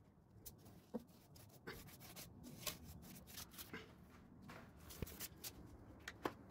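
Faint, irregular light clicks, taps and rubbing of things being handled, about a dozen small knocks scattered over a low room hum.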